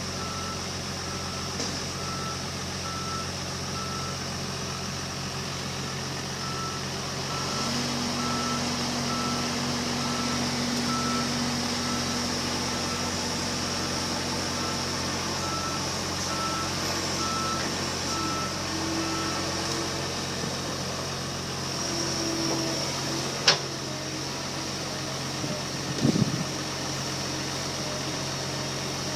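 Heavy diesel engines of a Kobelco 330 excavator and a John Deere 250D off-road dump truck running steadily while the truck is loaded with sand, with a back-up alarm beeping over and over until about two-thirds of the way through. A steady whine joins for several seconds, and near the end there is a sharp click followed by a short knock.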